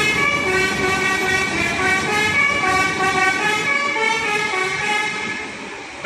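Palala intercity bus's telolet horn, a set of musical air horns, playing a tune of changing notes over engine noise; it fades near the end as the bus pulls away.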